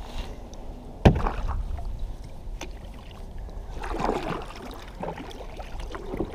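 Kayak paddling: a sharp knock about a second in, then the swish and splash of the paddle blade in the water about four seconds in, over a steady low rumble.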